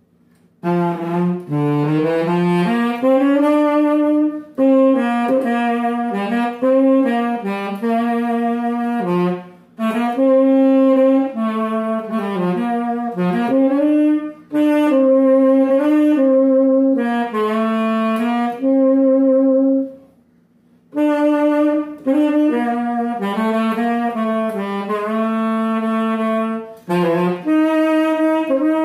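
Galasso tenor saxophone in B-flat, nickel-plated and freshly overhauled with new pads, playing a melody in phrases separated by short breath pauses, with a longer pause about twenty seconds in. Some held notes carry vibrato.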